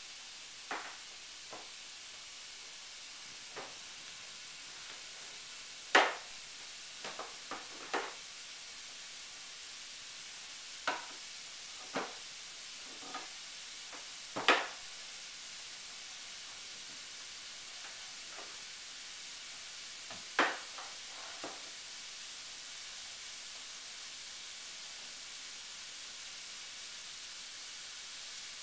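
Irregular clinks and knocks of metal food cans being handled, pulled off pantry shelves and set down on a wood floor, a few of them much louder, over a steady hiss. The knocks stop about two-thirds of the way through, leaving only the hiss.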